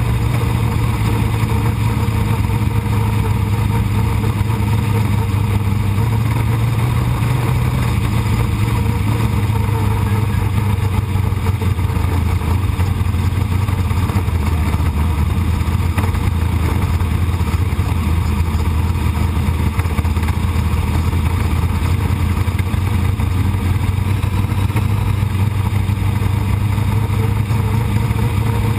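Sprint car engine running hard at racing speed on a dirt track, heard loud from an on-board camera in the cockpit. A steady engine note that dips slightly and rises again as the car goes round the turns.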